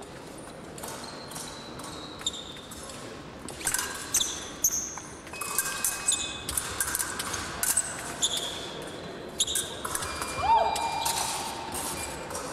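Sports-hall sounds during fencing: many short, high squeaks and knocks from shoes on the floor, with brief high tones and a wavering tone about two thirds of the way in, in an echoing hall.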